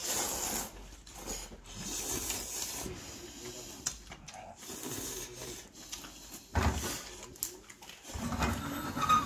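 A man slurping ramen noodles from a bowl and chewing, in several separate noisy slurps, the first right at the start and louder ones about six and a half and nine seconds in.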